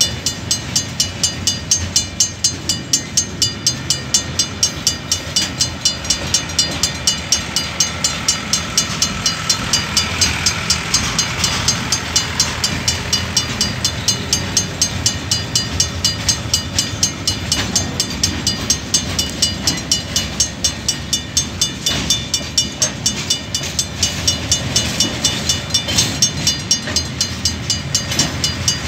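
A level-crossing bell rings steadily at about three strikes a second while the wagons of a container freight train rumble past over the rails. A faint high squeal rises and fades about ten seconds in.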